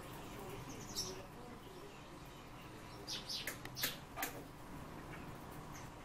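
Cage songbirds giving short, sharp, high-pitched chirps: one about a second in, then a quick run of several between about three and four seconds in.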